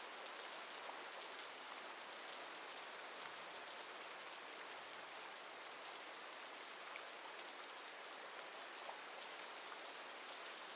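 Steady rain falling, with fine scattered drop ticks and a soft, even hiss.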